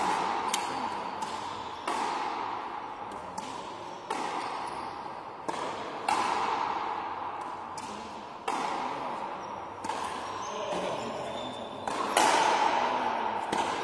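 Frontenis rally: the rubber ball struck by strung racquets and hitting the front wall and floor, a sharp knock about every one to one and a half seconds, each ringing on in the hall's long echo.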